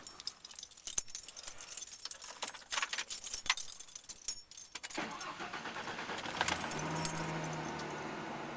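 Keys jangling and clicking at the ignition. About five seconds in, the 1993 Ford F-150's 4.9-litre straight-six starts and settles into a steady idle. This is a dry start on fresh oil and a new filter, with oil pressure slow to build.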